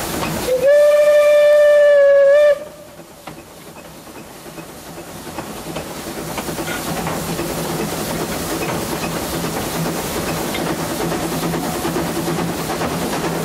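ÖBB 298.52 narrow-gauge steam locomotive's whistle sounding once, a steady pitched blast of about two seconds starting about half a second in. Afterwards the train's running noise, with a steady low hum, drops away and then slowly swells back up as the train rolls on.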